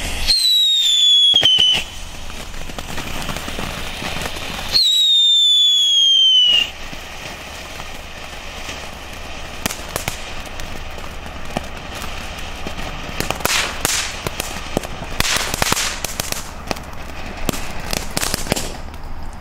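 Junior Chico firework fountain burning: two loud whistles near the start, each falling in pitch over a second or two, then a long hissing spray of sparks with crackling that grows denser toward the end.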